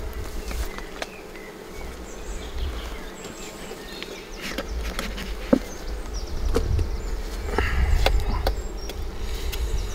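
Honeybees buzzing over an opened nuc hive, with scattered sharp clicks of a metal hive tool against the frames and a few puffs of a bee smoker.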